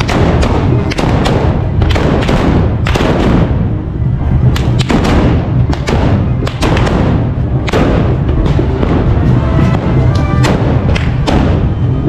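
Black-powder muskets firing again and again, about twenty loud, echoing bangs at irregular intervals, over band music.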